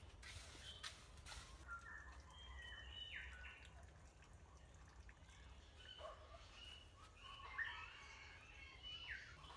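Faint birdsong: short chirps and calls from small birds, on and off. About three-quarters of the way through comes a single sharp knock, the loudest thing heard, as a concrete block is set down.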